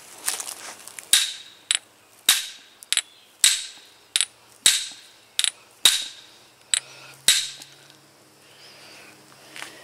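Hammer blows on a steel punch, beating a stuck piece out of an old ball joint. About a dozen sharp, ringing metal-on-metal strikes land roughly every half second. They stop about three-quarters of the way through, and one lighter tap comes near the end.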